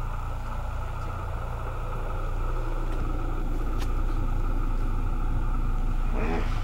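A boat's motor running with a steady low hum, with a single sharp click about four seconds in.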